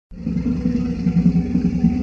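Tyrannosaurus rex roar sound effect: a deep, rough, sustained growl that starts suddenly just after a silent gap.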